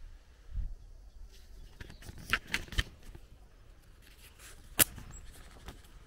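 A few sharp, irregular clicks and snaps, the loudest a single crack near the five-second mark, with a low thump near the start, over faint outdoor background.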